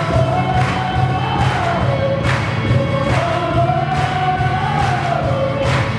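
A group singing a Christian praise song over an instrumental accompaniment with a steady beat.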